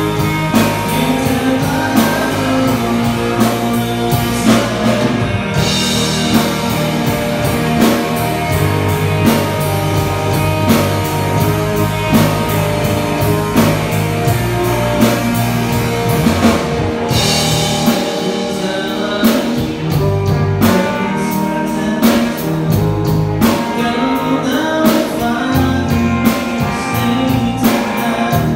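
A rock band playing live: electric guitar, electric bass and drum kit, with a man singing lead.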